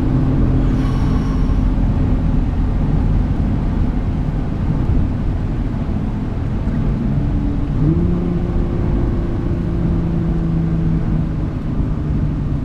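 2017 Nissan GT-R's twin-turbocharged 3.8-litre V6 running under way over steady low road rumble. About eight seconds in the engine note steps up in pitch and holds there, easing back down near the end.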